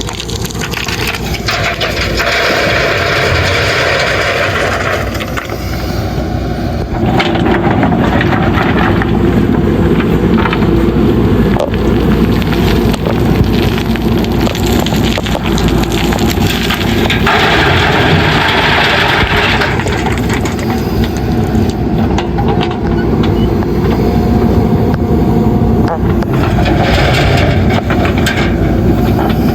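Backhoe loader's diesel engine running steadily under load, with four spells of gravel scraping and pouring as the bucket scoops and dumps the load.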